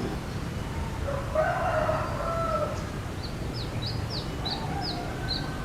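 A rooster crowing once, about a second and a half long, followed by a small bird's quick run of short, high, falling chirps, over a steady low rumble.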